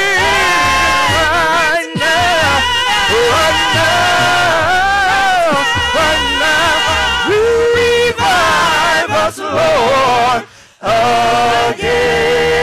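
Gospel praise team singing into microphones, a male lead with women backing singers, the voices held and wavering with strong vibrato. The singing stops briefly about ten seconds in, then resumes.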